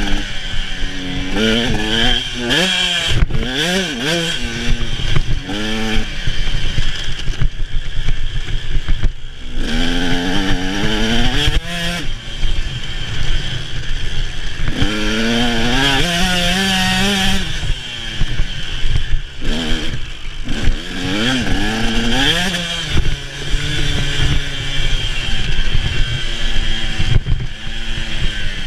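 Dirt bike engine being ridden hard, its pitch climbing and dropping over and over as the throttle is opened and closed.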